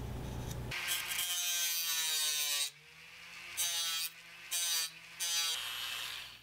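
Flex-shaft rotary tool with a small cutting disc running. It gives one longer run with its whine sliding in pitch, then three short bursts.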